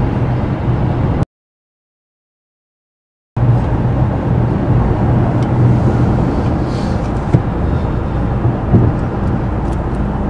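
Steady rumble of car and road noise with a low hum. The sound cuts out completely for about two seconds shortly after the start, then returns; a couple of faint clicks come later.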